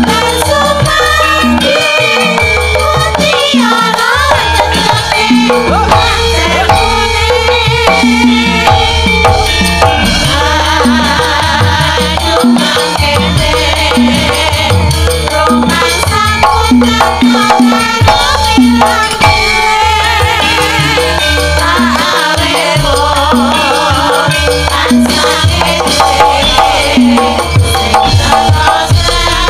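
Javanese gamelan music with a chorus of sindhen, female singers, singing together through microphones in a wavering, ornamented vocal line over steady drum strokes and a sustained low tone.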